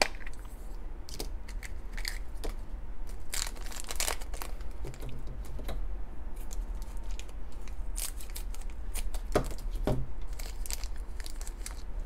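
Crinkly foil blind bag being torn open and handled: irregular crackling and rustling of the wrapper, busiest about a third of the way in and again in the last third.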